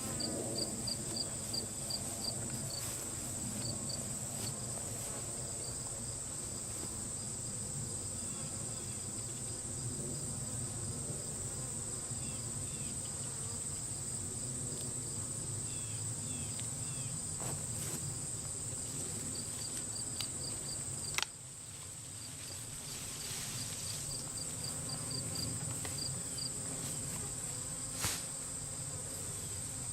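Honeybee swarm humming low and steadily, over a steady high-pitched insect trill and a quick chirp repeating about four times a second at times. A sharp click comes about two-thirds of the way through, and another near the end.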